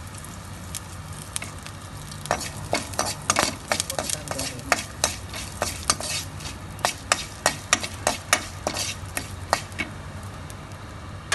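Curry leaves, dry red chillies and cumin seeds frying in hot oil, crackling and popping while a spatula stirs them around the pan. The sharp pops and clicks come thick and fast from about two seconds in.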